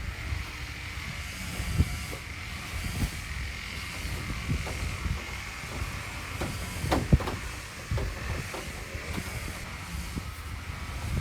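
Hand work with body filler on a fiberglass patch: scattered light scrapes and knocks, with a sharp click about seven seconds in, over a steady high hiss.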